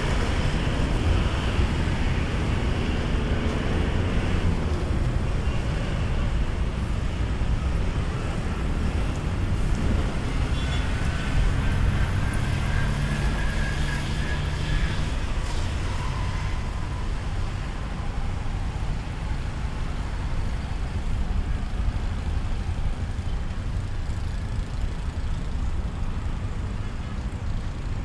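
Road traffic on a busy city avenue: cars, vans and motorcycles running and passing close by, a steady engine and tyre noise.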